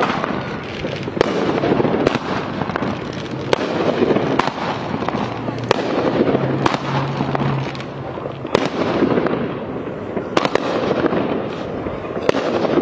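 Aerial fireworks going off overhead: sharp bangs every second or two, irregularly spaced, over a constant dense din.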